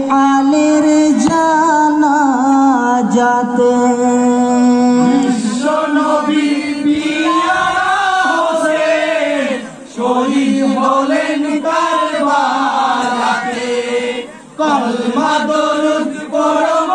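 A group of men chanting a marsiya, a lament for Husain's martyrdom at Karbala, in unison. A long held note opens it, then rising and falling phrases, with short breaks for breath around ten and fourteen seconds in.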